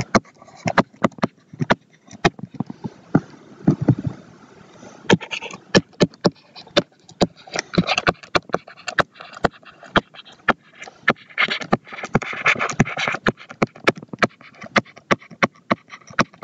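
Stylus tapping and clicking on a tablet screen during handwriting: many sharp, irregular clicks, about three or four a second.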